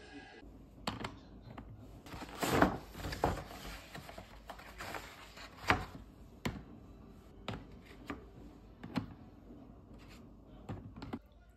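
Eggs being set one by one into the plastic egg tray of an electric egg steamer: a series of light taps and clunks at uneven intervals, loudest about two and a half seconds in.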